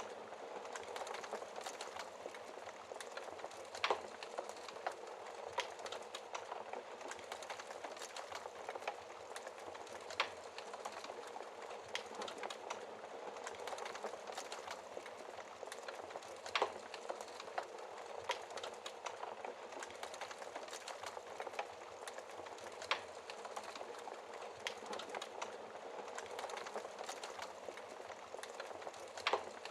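Wood fire in a fireplace crackling steadily, with a sharp louder pop every six seconds or so, five in all.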